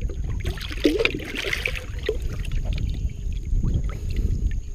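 Water splashing and trickling beside a boat, over a steady low rumble, with a cluster of splashes about a second in.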